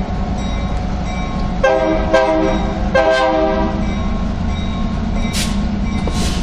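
Freight train of boxcars and a diesel locomotive rolling slowly past with a steady low rumble. The locomotive's air horn sounds in three short blasts in quick succession, starting a little under two seconds in.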